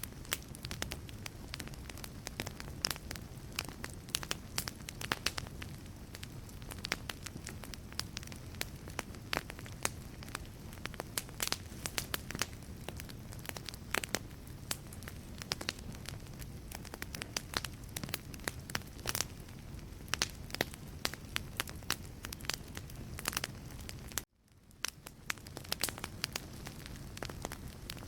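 Wood burning in a fireplace, crackling with frequent sharp pops over a low steady rush of flame. Near the end the sound cuts out for a moment and fades back in.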